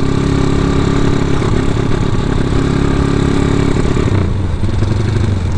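Honda Tiger's single-cylinder four-stroke engine running through a CJDW aftermarket racing muffler while being ridden, at a steady pitch. About four seconds in, the note drops to a lower, deeper tone.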